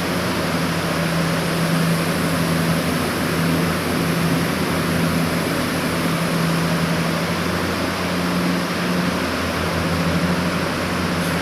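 Walk-in cold room refrigeration running: a steady whoosh of fans with a constant low hum.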